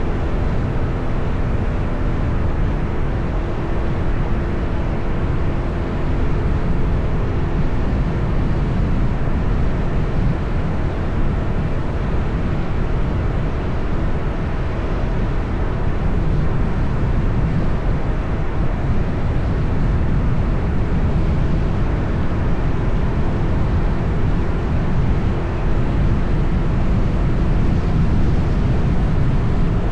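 Steady city traffic and road noise, a loud low rumble that holds even throughout, with a faint engine hum under it in the first few seconds.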